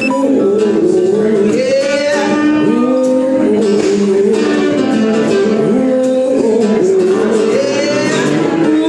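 Male singer singing to his own acoustic guitar.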